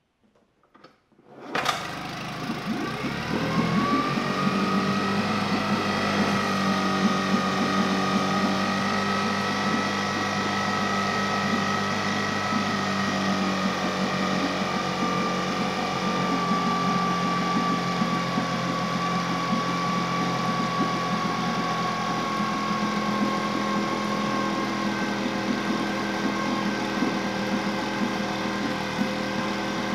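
Yamaha 9.9 hp four-stroke outboard pull-started, catching about a second and a half in and then idling steadily, a thin whine over the idle fading out later on. It is the formerly non-running motor running after its repair.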